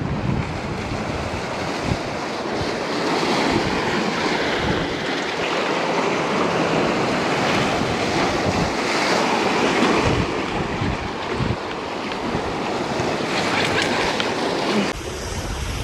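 Ocean surf washing ashore, with gusts of wind buffeting the microphone.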